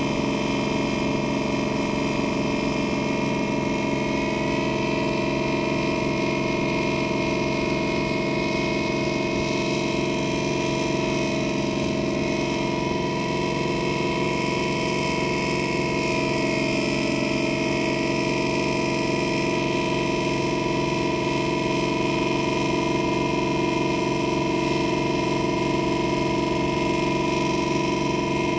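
A boat's engine running steadily under way: a constant drone with several held tones that does not change in pace.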